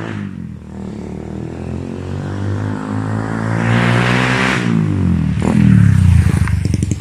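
Bajaj motorcycle's small single-cylinder engine as the bike rides up, passes close by about four seconds in and pulls away, the engine note swelling as it goes past.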